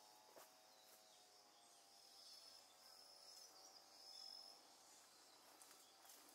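Near silence: faint outdoor ambience with a thin high hiss and a few faint chirps.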